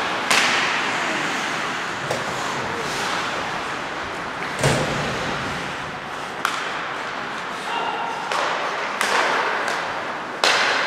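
Ice hockey play in an echoing ice hall: several sharp bangs of puck and sticks against the boards, the loudest about halfway through, over a steady hiss from the rink.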